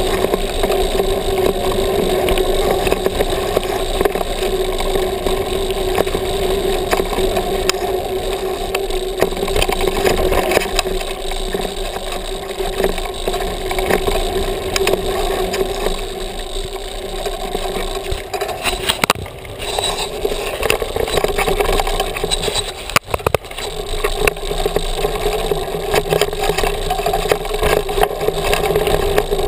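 Mountain bike rolling fast down a dirt trail: a steady rush of tyre and wind noise on a handlebar-mounted camera, with frequent small rattles and clicks from the bike over the rough ground.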